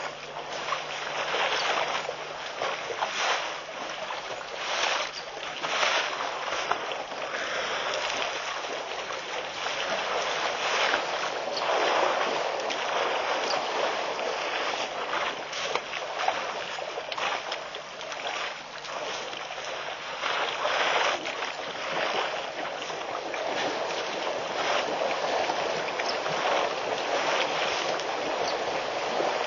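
Water splashing and sloshing as African elephants wade and drink in a shallow waterhole, a continuous noisy rush that swells and fades every second or two.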